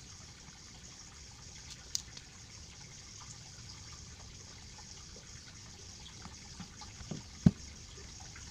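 Steady hiss with a few light clicks and knocks as a DSLR camera body is handled and turned over on a work mat. The loudest is a single low thump about seven and a half seconds in.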